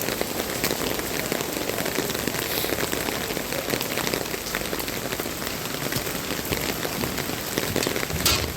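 Heavy rain pouring down: a steady, dense patter of drops hitting the ground, with one sharper hit near the end.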